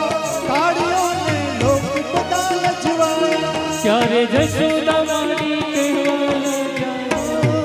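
Live Gujarati garba music through microphones: a man singing over an electronic keyboard's held notes, with tabla keeping a steady beat.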